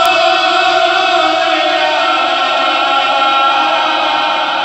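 A man's voice chanting an Islamic devotional kalam into a microphone, holding long drawn-out notes, with the melody shifting to a new note about halfway through.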